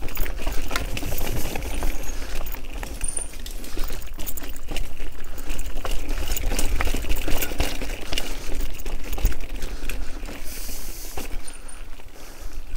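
Bicycle rattling and clattering over a rough trail: a dense run of small knocks and clicks over a steady low rumble.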